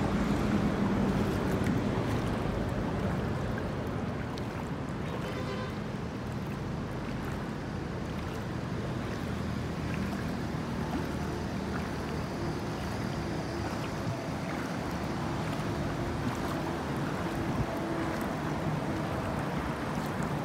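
Steady rushing noise of floodwater, with wind on the microphone; a brief faint run of ticks about five seconds in.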